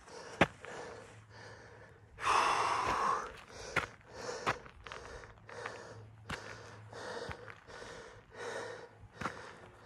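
A hiker's heavy breathing, short breaths in and out about every half second to second, from the exertion of climbing a steep trail. A longer, louder exhale comes a little after two seconds in, and there are a few sharp clicks.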